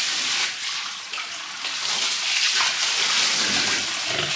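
Water spraying and splashing steadily, with surges, as a pigsty and its pigs are washed down.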